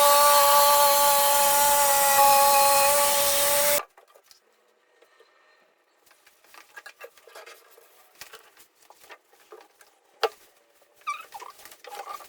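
Power saw cutting through a kitchen countertop with a steady whine; it stops abruptly about four seconds in. Faint scraping and light taps follow, with one sharper knock near the end.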